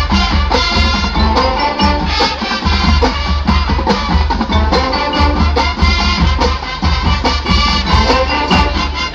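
College marching band playing its field show: brass over drumline and front-ensemble percussion, with a busy, driving rhythm of sharp drum strikes.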